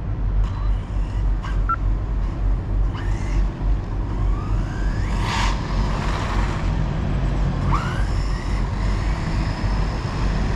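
Team Corally Syncro4 RC car's brushless motor, on 4S with a 17-tooth pinion, whining up in pitch as the car accelerates away, once about halfway through and again briefly about three quarters in. A steady low rumble runs underneath.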